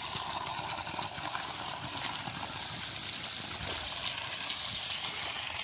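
Water running out of a broken gravity-fed supply pipe under its own pressure: a steady, even rushing splash.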